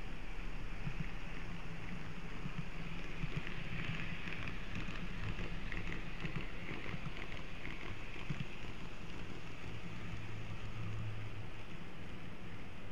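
N-gauge model train running on its track: a steady motor hum under the hiss of the wheels rolling on the rails, which gets a little louder between about four and seven seconds in.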